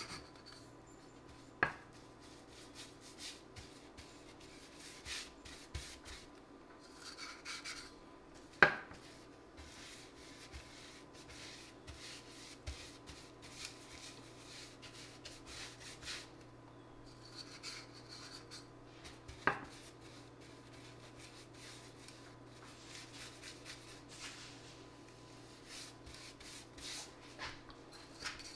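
Paintbrush bristles swishing and scraping across bare particle board as oil-based polyurethane varnish is brushed on, in repeated short strokes. Three sharp clicks break in, the brush knocking against the rim of the small metal can as it is dipped.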